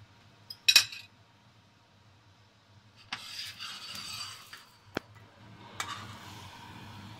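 Sharp clinks of a metal utensil against dishes and a frying pan under a second in, then a scraping stretch and a couple of single knocks as the pan is handled on the stovetop.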